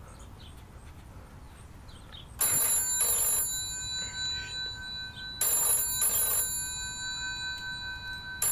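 Telephone bell ringing in a double-ring pattern: two short rings, a pause of about three seconds, two more rings, and the next pair just beginning at the end. The tones hang on between the rings.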